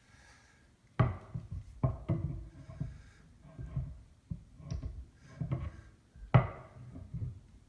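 A run of knocks and clatter from resin statue pieces and their packaging being handled, with sharp knocks about a second in and again near the end.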